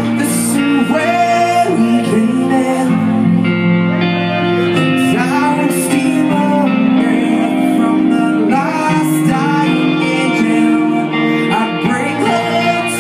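Live rock band playing in full: electric guitars and drums with cymbals, with men singing into microphones over them.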